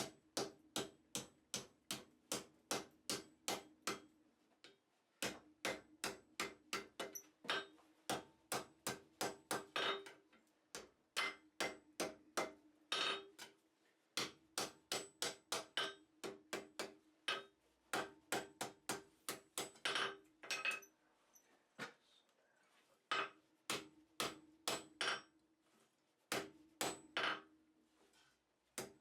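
Blacksmith's hammer striking metal on an anvil while forging tongs: runs of rapid blows about three a second, broken by a few short pauses, with a steady ring under the strikes.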